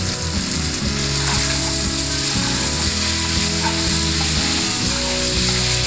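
Garlic butter sauce sizzling and bubbling steadily in a nonstick pan just after lime juice is added, stirred with a wooden spatula.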